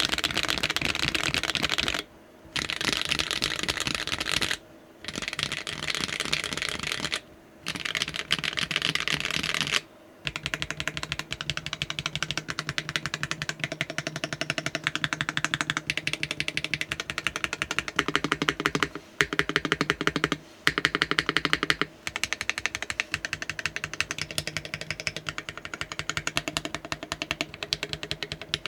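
Mechanical keyboard with HMX Snow Crash rail-bottom-out linear switches, in a Polygon 7 case with an aluminium plate and no foam, being typed on fast: dense, rapid keystroke clacks. For the first ten seconds the typing comes in bursts of about two seconds with short pauses, then runs on almost without a break.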